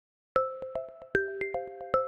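An iPhone ringtone from iOS 17 begins playing after a brief silence: a quick repeating melody of short chiming notes, about six a second.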